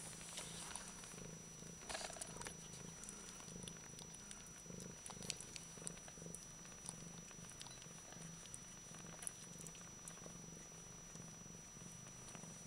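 Bengal mother cat purring steadily and low while nursing her kittens, with small clicks and rustles from the kittens suckling and shifting on the towel.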